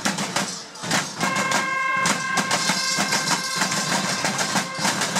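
Large bells worn on the belts of Perchten costumes clanging in a dense, rhythmic clatter as the wearers move, with a clear ringing tone held for a couple of seconds in the middle.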